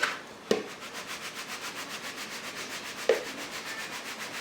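Chicken breast being rubbed and turned in a bowl of dry breadcrumb and Parmesan mixture: a steady, rhythmic gritty rubbing of several strokes a second, with two light knocks against the bowl, about half a second and three seconds in.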